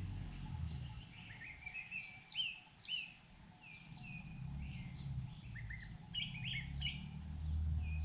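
A young cuckoo begging at the nest while it is fed, a run of short, high, repeated chirps that come in clusters. A low rumble sits underneath and grows louder near the end.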